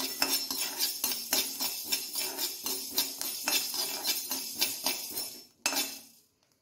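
A perforated metal spoon stirring and scraping fenugreek seeds around a dry metal kadai as they roast, in quick repeated strokes with a jingly metallic clinking. The stirring stops near the end.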